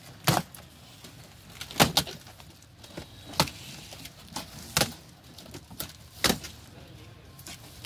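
A series of sharp knocks, about six of them, roughly one every second and a half, over a low background.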